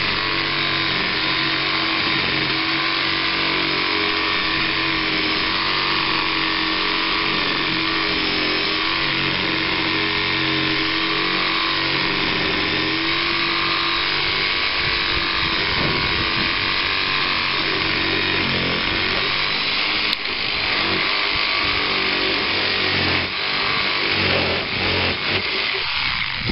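Kobalt 4-amp corded reciprocating saw running steadily, its blade cutting through branches. Near the end the motor note goes uneven.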